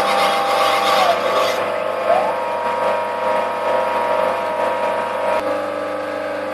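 DIY CNC conversion lathe running a threading pass on PVC pipe. The stepper motors whine, their pitch gliding down about a second in and back up to a higher steady tone a second later as the carriage slows and changes moves. A high hiss stops about one and a half seconds in, and there is one sharp click near the end.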